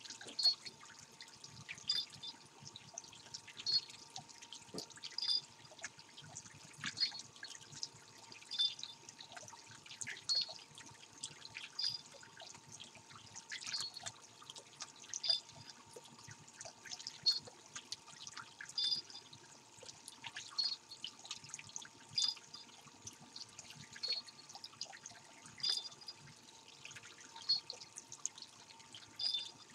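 Japanese pond turtle splashing at a pond's surface, a plopping chappon-chappon repeated evenly about every second and a half to two seconds, over a steady trickle of water and a faint steady hum.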